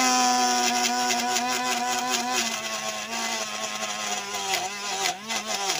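Small DC motor of a homemade plastic-box chilli cutter running with a steady whine. Its pitch sags slightly as a green chilli is pushed in and chopped, with crackling clatter from the cutting that grows near the end, where the motor's speed wobbles under the load.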